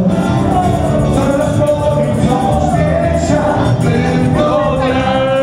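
Dance music with singing, at a steady loud level.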